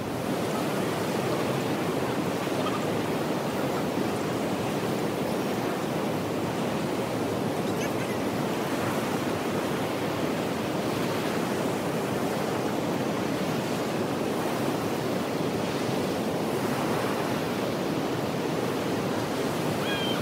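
Small river waves breaking and washing onto a sandy shore: a steady rushing of water.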